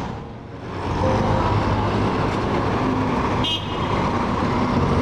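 City street traffic: engines of jeepneys, cars and motorcycles running steadily, with a short high-pitched toot about three and a half seconds in.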